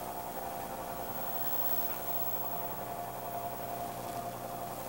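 Steady buzzing hum over hiss from a cheap wireless spy camera's radio link: transmission static, annoying but normal for such a camera.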